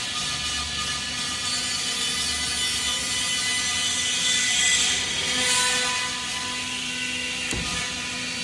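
Factory machinery running: a steady mechanical hum over a hiss, with a single click about seven and a half seconds in.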